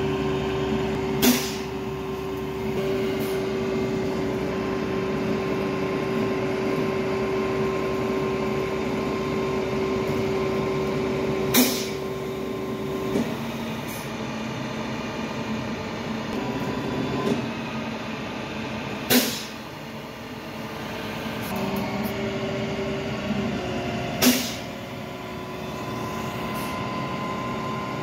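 International flatbed tow truck running in the street, a steady drone with a held whine that stops about halfway through and comes back near the end. Four short sharp bangs or air bursts cut through it, each ringing out briefly.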